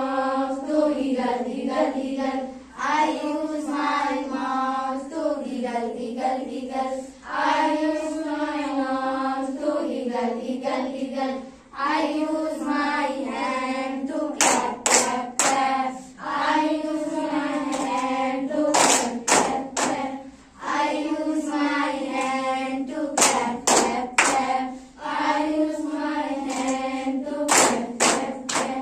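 A group of girls singing an English action rhyme together in unison, with four short runs of hand claps in time with the song in the second half.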